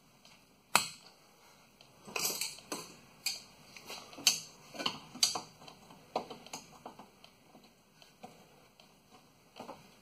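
Metal clicks and clanks of large locking pliers (vise grips) being clamped and worked on a seized brake line fitting: a sharp clack under a second in, then a run of clanks over the next few seconds that thins out toward the end.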